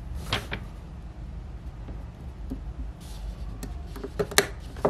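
Samsung Galaxy Watch Gear S3 rotating bezel being pressed back onto the watch case by hand: a few short, sharp clicks and taps of the bezel ring against the case, two close together just after the start and a cluster near the end, the loudest snap about four and a half seconds in as the bezel seats.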